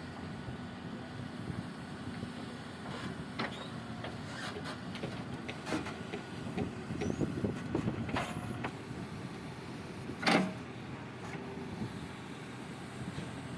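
A heavy diesel earthmoving machine, likely a JCB backhoe loader, running steadily while digging, with scattered clanks and knocks. One louder scrape comes about ten seconds in.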